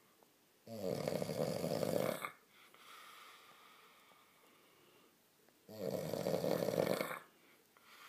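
A man snoring while asleep on his back: two loud, rattling snores, one about a second in and one near six seconds in, each lasting about a second and a half, with quieter breathing between them.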